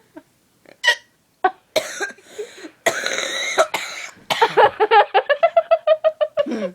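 A person's squeaky hiccups and laughter: a couple of short, sharp squeaks, a rough, cough-like breathy burst, then a quick run of high giggles about six a second near the end.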